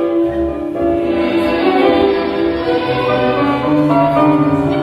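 Recorded tango orchestra music playing an instrumental passage of sustained melodic notes.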